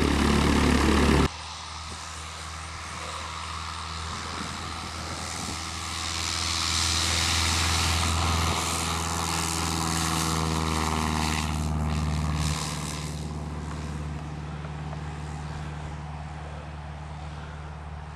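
Grumman AA-1C light aircraft's 125-horsepower engine at full power on its takeoff run: the sound builds as it comes nearer, is loudest with a falling pitch as it passes, then fades as it climbs away. A loud low rumble stops abruptly about a second in, and a steady low hum runs under it all.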